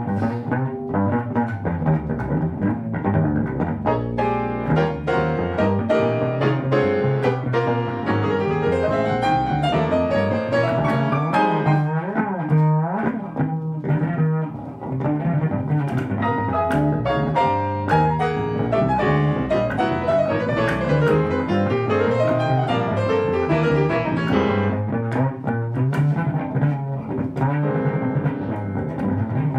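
Yamaha SLB300 silent upright bass plucked in a busy run of notes, with piano accompanying: a jazz bass-and-piano duo.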